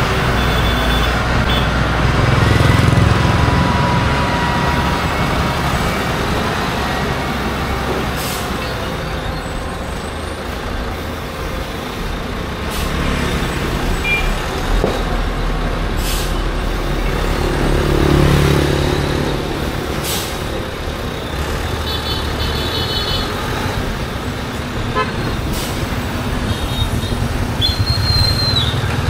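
Motor vehicle engine and road noise, with a few short high beeps in the last third.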